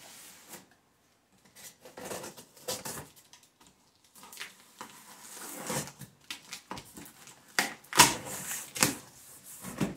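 Hands opening a cardboard box: irregular scraping, rustling and knocks of cardboard, with two sharper knocks about eight and nine seconds in.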